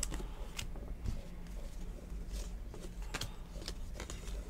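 Football trading cards being sorted and flicked through by hand: scattered light clicks and slides of card stock, over a steady low hum.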